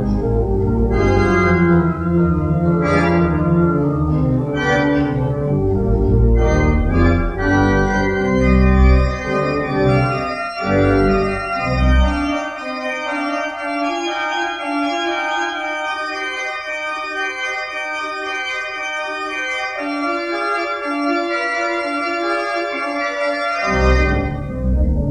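Organ playing a hymn tune in sustained chords. The deep bass notes drop out about halfway through and come back in near the end.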